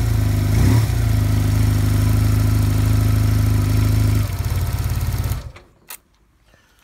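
An engine running steadily at idle, then shutting off about five seconds in, followed by a single click.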